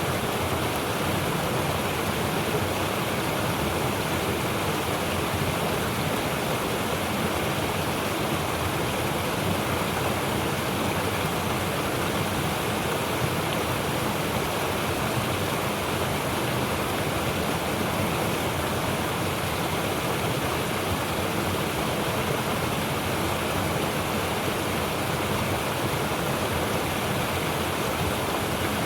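Mountain stream rushing over rocks: a steady, unbroken roar of water with a deep low rumble under it.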